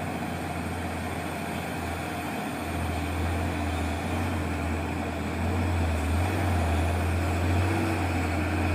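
Heavy truck engine rumbling steadily with road noise, growing somewhat louder about three seconds in.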